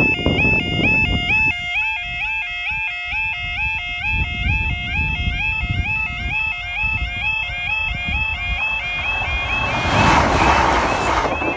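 Level crossing yodel alarm sounding, a warbling two-tone call repeating about twice a second. Near the end the noise of a Class 165 diesel multiple unit passing over the crossing swells up under the alarm.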